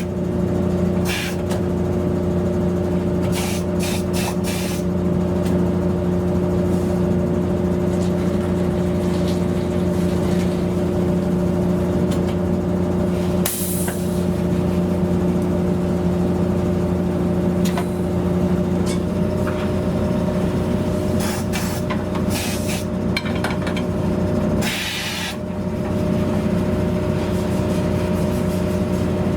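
Steady machine hum from tyre-shop equipment, with short hisses of compressed air: one brief hiss about halfway through and a longer one near the end, plus a few quick ones.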